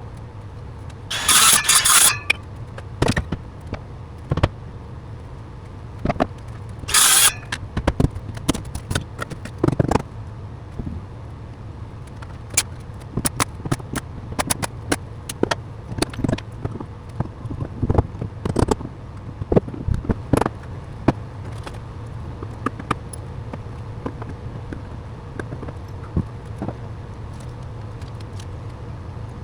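Hands-on carpentry work on wall framing: scattered knocks and clatters of wood and tools, thickest in the middle, with two short loud noisy bursts, one about a second in and one about seven seconds in, over a steady low hum.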